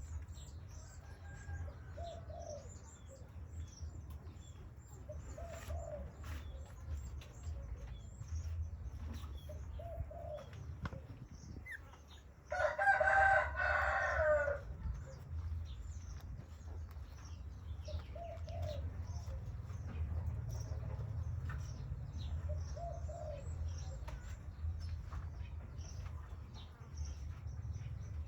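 Birds calling: soft coos repeated every few seconds and scattered chirps, with one loud, drawn-out call of about two seconds near the middle, over a steady low rumble.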